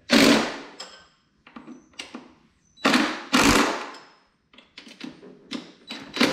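Small cordless impact driver run in several short bursts, lightly snugging down the throttle body fasteners into the plastic intake.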